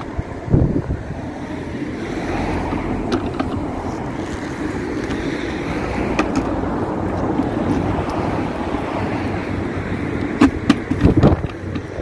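Wind buffeting the microphone, with a few hollow plastic knocks from a toy Henry vacuum's red canister being handled, once about half a second in and several times near the end.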